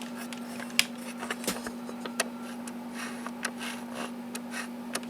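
Plastic toy figure being handled and transformed: irregular small clicks and brief scrapes of ABS plastic parts being moved and pressed into place, over a steady low hum.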